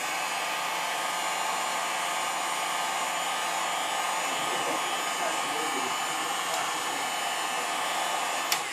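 Heat gun blowing hot air steadily over the cracked glass of a Samsung Galaxy S3, warming it to soften the adhesive before the glass is pried off; it cuts off near the end.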